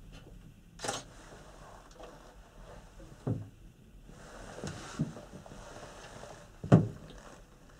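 Panoramic Mont Blanc gondola cabin knocking and clunking as it jolts along the cable at full speed: a handful of sharp knocks over a low rumble, the loudest a heavy thump near the end, with a soft hiss in the middle.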